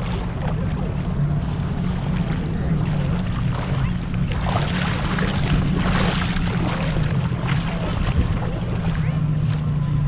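Jet ski engine running with a steady low drone. A louder rush of hiss comes and goes midway.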